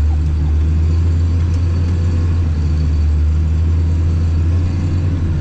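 Tractor engine running steadily, heard from inside the cab as a loud, even low drone.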